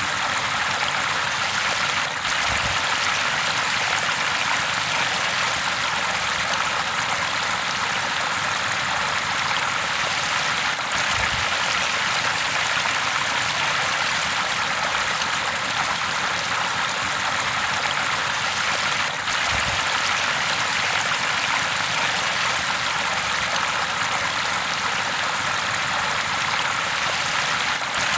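River water flowing steadily, a constant even rush of running water.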